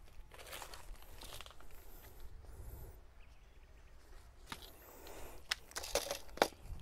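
Faint rustling of a person moving about on dry leaf litter, with a few sharp clicks from gear being handled in the second half.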